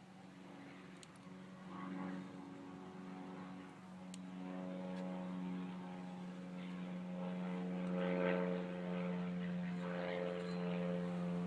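A motor droning at a steady pitch, growing gradually louder, with a couple of faint clicks.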